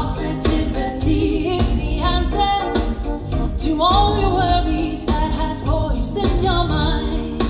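A woman singing live into a microphone over instrumental backing with a steady beat, holding some notes long.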